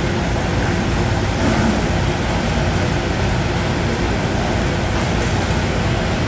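Steady roar of an indoor inline hockey rink: a low constant hum and general din with no single standout event, and faint voices in the background about a second and a half in.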